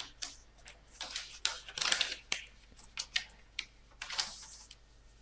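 A large sheet of dual-colour origami paper being pulled over and pressed into a crease by hand: irregular rustles and crisp crackles, with a few sharp snaps of the paper.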